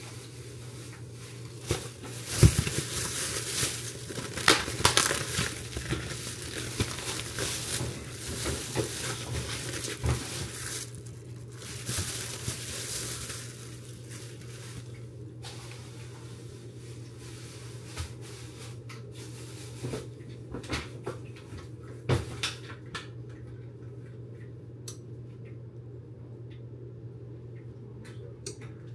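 Plastic packaging crinkling and rustling as a raw steak is pulled out and handled with gloved hands, dense for about the first twelve seconds. After that, a few scattered clicks and light knocks of kitchen handling over a steady low hum.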